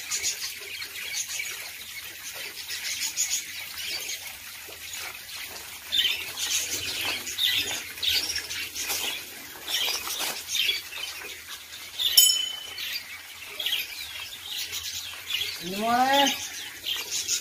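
Small birds chirping and twittering in quick, overlapping short calls. Near the end a single pitched call rises and then falls in pitch.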